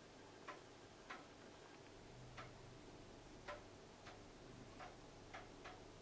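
Near silence with faint, slightly uneven ticks about once a second.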